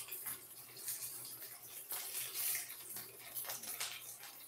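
Rice patties frying in hot oil in a stainless steel pan: a steady sizzling hiss with frequent small crackles and pops.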